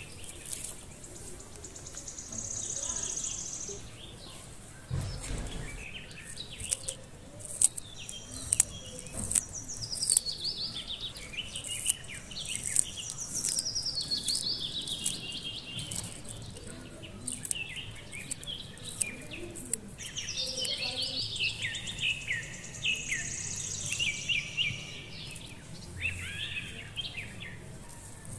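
Birds singing, with quick descending chirped phrases repeating over and over, mixed with scattered sharp clicks and a single low thump about five seconds in.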